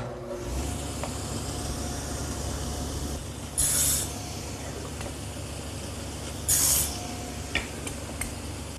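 Table saw running with an adjustable dado head cutter, which bites into pine twice, about three and a half and six and a half seconds in, cutting tenons on the ends of 1-by-3 pine pieces.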